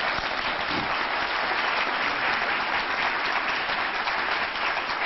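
Large audience applauding steadily, many hands clapping at once, with some people on their feet.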